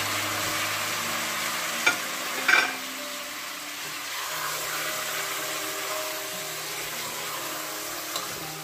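Raw chicken pieces sizzling in hot oil in a pot as they are sautéed with garlic, onion and ginger, stirred with a wooden spoon. There are two sharp knocks of the spoon against the pot about two seconds in.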